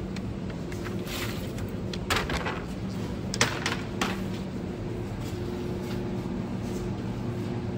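Supermarket ambience: a steady low hum with a few sharp clacks and knocks, the loudest about two and three and a half seconds in.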